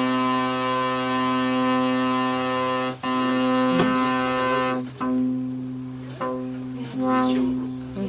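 Polivoks analog synthesizer playing a buzzy, brass-like note at one pitch. It is held for about three seconds, then retriggered four times, each note starting bright and its upper harmonics dying away as the envelope decays. This is the envelope generator in its ordinary single mode.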